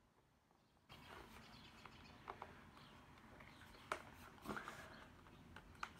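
Faint clicks and creaks of a snap-on plastic hard-shell case being pried off a MacBook Pro laptop, with a few sharp ticks and short squeaks. Near silence for about the first second.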